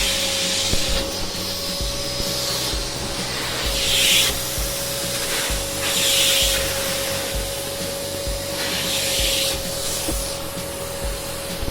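Eureka Forbes Euroclean X-Force 1400-watt canister vacuum cleaner running with its carpet brush, the motor holding a steady whine. The airflow rushes louder in several swells as the brush is worked back and forth over a carpet.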